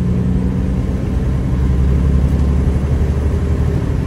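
Truck engine running with a steady deep drone; about a second and a half in, its tone drops lower.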